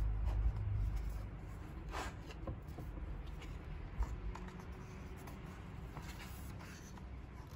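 Pages of a hardcover picture book turned by hand: paper rustling and brushing, with a sharper page flick about two seconds in and another about four seconds in.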